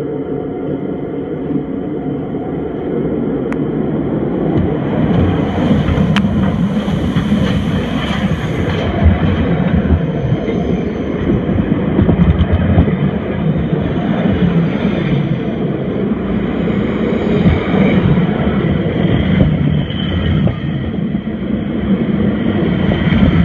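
Steam locomotive SJ 1916 and its carriages rolling directly over the listener at track level: a loud, steady rumble of wheels and running gear that swells as the train arrives, with a stretch of hissing about five seconds in and a couple of sharp clicks. The sound is muffled, picked up by a phone in a protective case lying between the rails.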